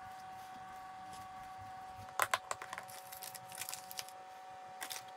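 Clip-lock lid of a plastic food storage container being unlatched and lifted: a quick cluster of sharp clicks and snaps about two seconds in, then a packet rustling inside and a couple more clicks near the end. A faint steady hum runs underneath.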